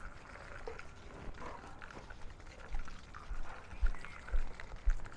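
Footsteps on a paved tile path: soft low thuds about twice a second from about halfway in, over faint scuffing and light clicks.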